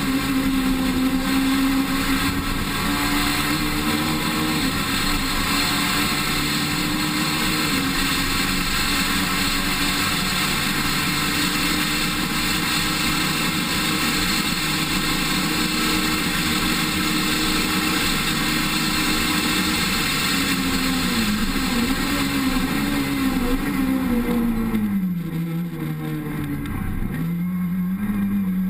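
Rally car engine running hard at high revs on a special stage, recorded from the cockpit, its pitch stepping at gear changes. Near the end the revs fall and rise several times as the car slows and shifts down, dip lowest, then climb again as it pulls away.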